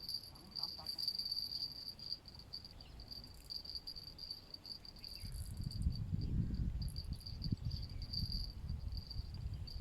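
Insects trilling steadily at one high pitch. A low rumble joins about halfway through.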